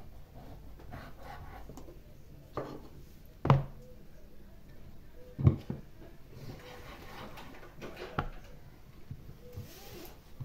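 A large kitchen knife slicing raw pork fat, its blade knocking on a wooden cutting board four times, the middle two knocks much louder than the others, with quieter rubbing of the knife and fat between them.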